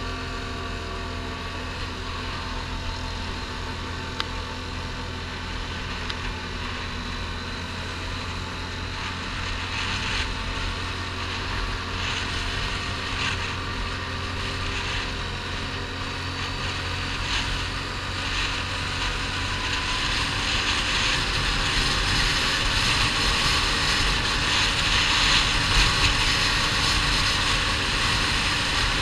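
Quad bike (ATV) engine running steadily at road speed, with a rushing hiss of air over the microphone that grows louder in the second half as the ride speeds up.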